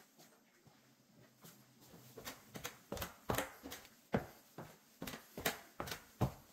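Footsteps on wooden stairs in an empty house: from about two seconds in, a run of sharp, irregular steps, about two or three a second.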